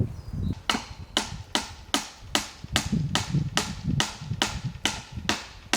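Hammer driving a nail into wood: a steady run of sharp strikes, about two and a half a second, starting just under a second in.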